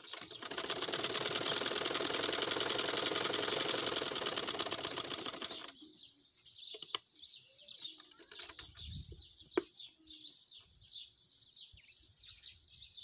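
Sewing machine running at speed with a fast, even mechanical rattle for about five seconds, then stopping; high chirping continues in the background.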